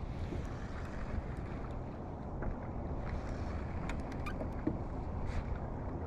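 Wind rumbling steadily on the microphone, with water lapping against a fishing kayak's hull. A few faint clicks come about four seconds in.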